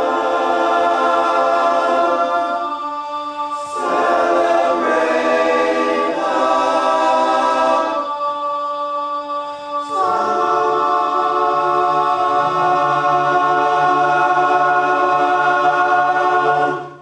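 Men's barbershop chorus singing a cappella in close four-part harmony, in sustained chord phrases. About ten seconds in it settles on a long held final chord with a deep bass note, which cuts off cleanly just before the end.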